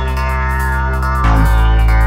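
Background electronic music: held synthesizer chords over a deep, steady bass drone, changing chord about a second and a quarter in.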